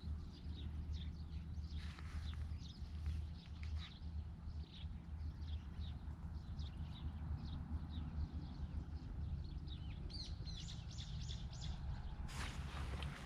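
Small birds chirping in short, high, repeated calls, with a quick run of calls about ten seconds in, over a steady low rumble. A rustling hiss starts near the end.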